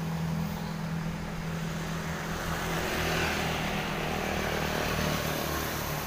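Road traffic: a steady low engine hum, growing slightly louder about halfway through as a vehicle passes.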